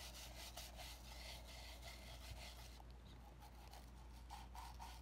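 Stiff-bristled scrub brush scrubbing a hard glasses case in quick repeated strokes, faint, thinning out about three seconds in.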